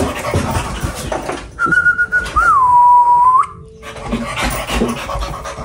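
A person whistles for about two seconds: a held note, a quick upward flick, then a slide down to a lower held note that cuts off sharply. Before and after it, an excited spaniel pants and scuffles around on plastic dust sheets.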